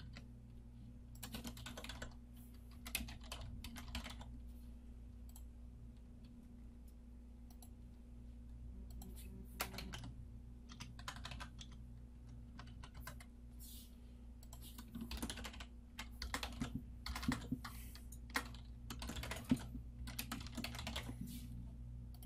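Typing on a computer keyboard: several bursts of quick keystrokes, the longest in the second half, over a steady low electrical hum.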